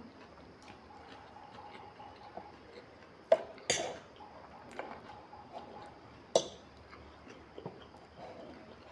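Forks clinking and scraping against plates while noodles are eaten: a few sharp clinks, the loudest about three and a half seconds in and again about six and a half seconds in, over faint small ticks of cutlery.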